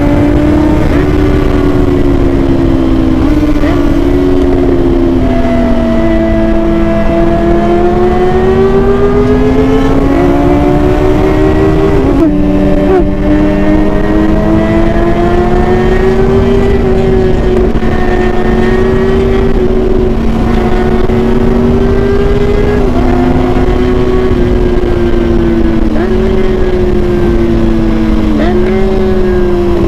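Kawasaki ZX-6R inline-four sport-bike engine under way on an aftermarket exhaust, its pitch rising and falling with the throttle and stepping down abruptly at several gear changes.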